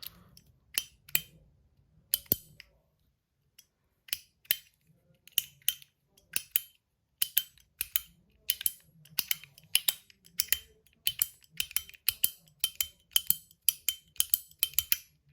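PEI plastic desk fidget being clicked over and over, each sharp high-pitched click followed by a short ring. The clicks come sparsely at first, then steadily about two or three a second.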